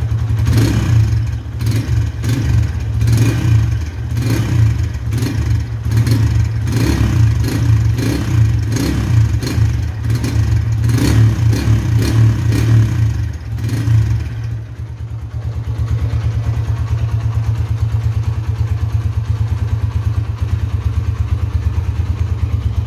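Honda Tiger's single-cylinder four-stroke engine, heard at the exhaust, revved in quick repeated throttle blips for about the first fourteen seconds. It then settles to a steady idle.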